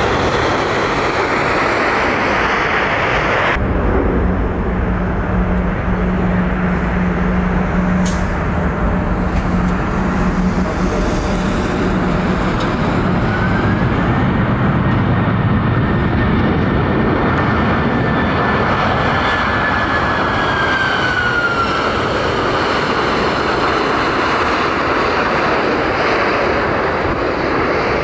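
Jet engine noise from a Boeing 747 freighter on the runway. A few seconds in there is a sudden change to a twin-engine Airbus A330 taxiing: a steady low engine hum with a whine that rises about halfway through, holds, then falls away.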